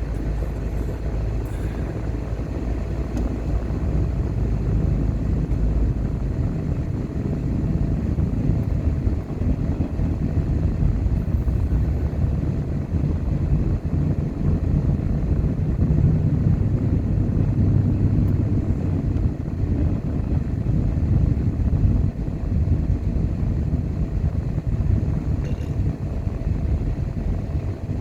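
Car driving on a road: a steady low rumble of engine and tyre noise.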